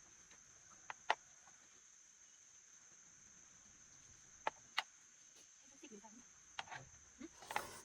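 Crickets chirring in a steady, high, even tone, with a few sharp clicks over it: a pair about a second in, another pair a few seconds later, and a cluster of clicks with faint low sounds near the end.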